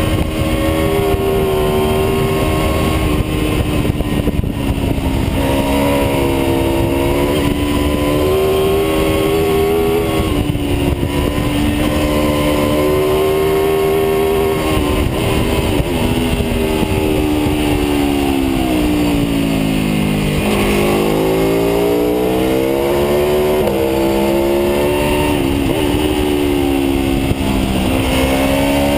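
Aprilia RSV4's V4 engine running hard at road speed, heard from on the bike over a steady rush of noise. The engine note holds high for about the first half, falls over several seconds as the bike slows, then climbs again with a couple of sudden jumps in pitch.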